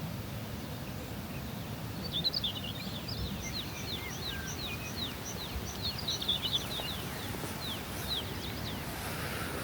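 Songbirds singing: from about two seconds in, a dense run of quick, high, falling chirps, over a steady low rumble of outdoor background noise.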